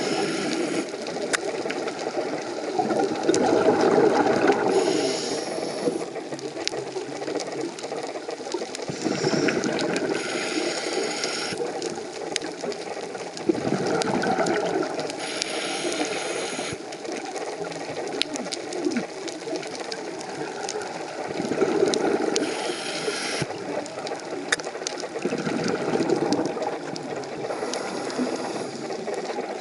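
Scuba diver breathing through a regulator underwater: a short hiss on each inhale alternating with a rush of exhaled bubbles, about every five to six seconds. Scattered sharp clicks throughout.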